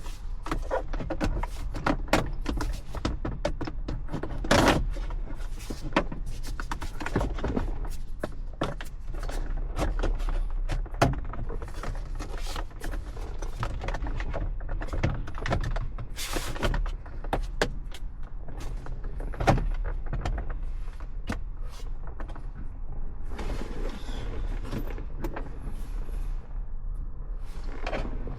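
Irregular clicks, taps and knocks of a digital gauge cluster and its plastic dash parts being handled and fitted into a car dashboard, over a steady low hum.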